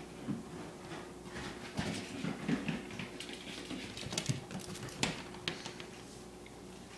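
Scattered light knocks, clicks and rubbing from a toddler pushing an inflatable vinyl riding horse about on a rug, with the patter of a dog's claws on the wood floor; most of it falls in the middle few seconds.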